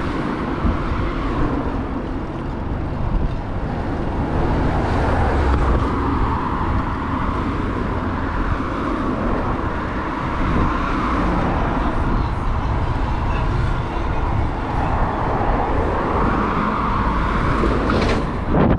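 Steady rumble of road and traffic noise heard from a bicycle moving along a busy street, with wind rumbling on the microphone.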